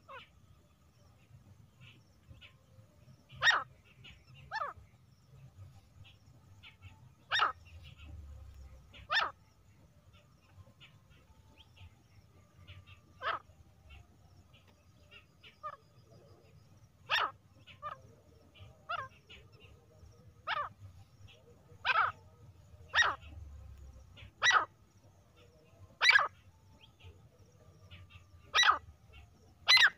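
Female grey francolin (teetar) giving single short call notes, about a dozen of them, irregularly spaced one to three seconds apart.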